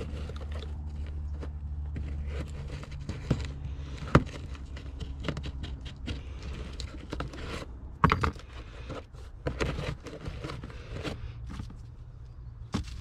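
Hand work on a rear shock absorber's mounting hardware: scattered metallic clicks and scrapes, with two sharp knocks about four and eight seconds in, over a steady low hum.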